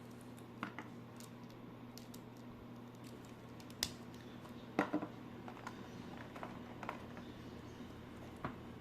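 Scattered light clicks and taps of small plastic toy parts and packaging being handled, the loudest a quick pair about five seconds in, over a steady low hum.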